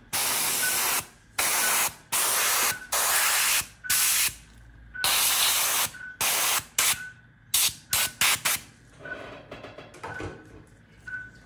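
Dental three-way air-water syringe spraying into a dog's mouth in a series of hissing bursts, each up to about a second long, then a quick run of short puffs about eight seconds in, during scaling and polishing of the teeth. A faint short beep repeats behind it.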